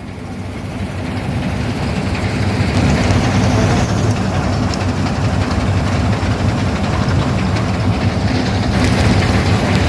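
Combine harvester running under load while it cuts a standing crop, heard from its open operator's platform: a steady, low engine and threshing-gear noise that swells up over the first three seconds, then holds level.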